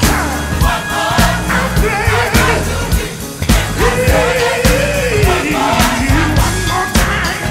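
Gospel choir singing over drums and bass. The voices waver around a melody, and a long sung line slides down in pitch in the second half.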